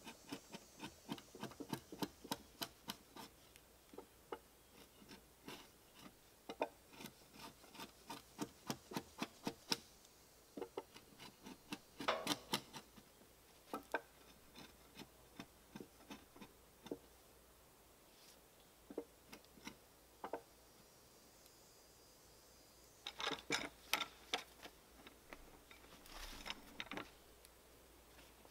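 Rapid runs of sharp strikes of a hand tool on a heavy timber beam, several a second, with pauses between the runs.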